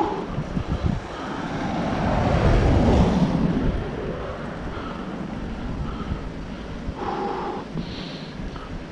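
Wind rushing over the microphone of a bicycle-mounted camera while riding, with a car swelling up and passing about three seconds in.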